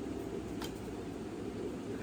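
Pigeon loft: many domestic pigeons cooing together as one steady low murmur, with a single light click about two-thirds of a second in.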